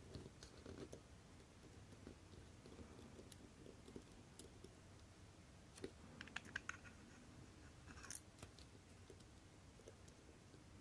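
Near silence with a few faint, small clicks of steel tweezers against the parts of a watch movement, a quick cluster about six seconds in and another about eight seconds in.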